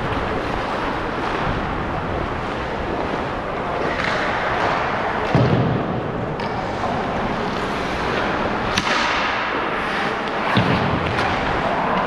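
Ice hockey play heard from a skating player: a steady scrape and hiss of skate blades on the ice, broken by a few sharp knocks, the loudest about five and a half and nine seconds in.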